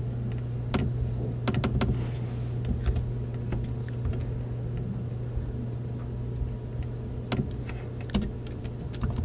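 Scattered clicks of a laptop keyboard and trackpad as text is cut, selected and pasted in a document, over a steady low hum.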